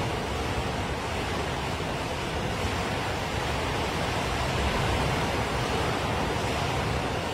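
Torrential rain pouring down in a severe storm, a steady rushing hiss with wind, swelling slightly about four seconds in.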